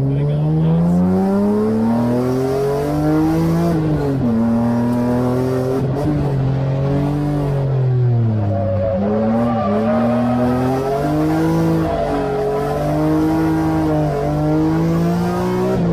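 Aston Martin DB5 stunt car's engine driven hard, heard from inside the cabin. The revs climb and drop again and again as it accelerates and slows through the corners.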